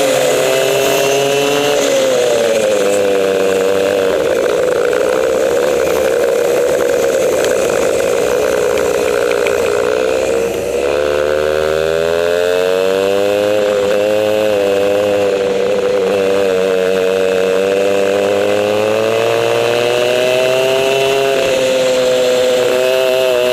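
Onboard sound of a two-stroke racing kart engine at race pace, its pitch sinking as it slows for corners and climbing again on the straights. About ten seconds in the revs drop sharply as the driver lifts, then build steadily back up.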